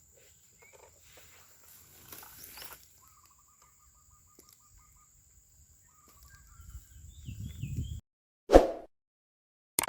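Birds chirping and trilling over faint outdoor ambience, with a low rumble growing louder. The sound then cuts off suddenly and a single loud thump follows, with a short click near the end.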